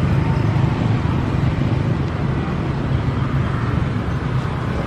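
CC 206 diesel-electric locomotive running light at low speed, its diesel engine giving a steady low drone.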